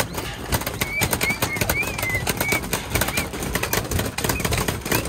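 Mounted paintball markers firing in quick, irregular pops, several a second, as more than one gun shoots at once.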